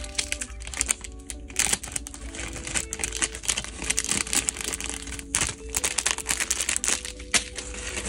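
Clear plastic packaging bags crinkling and rustling in irregular bursts as they are handled, with quiet music underneath.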